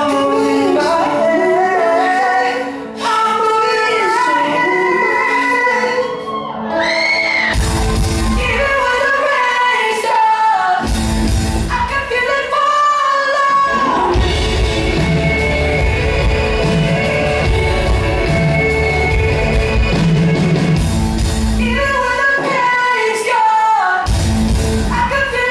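Live pop-rock song with a male lead vocalist singing over the band. The opening is sparse, voice over light accompaniment, and the full band comes in with a heavier low end about seven seconds in.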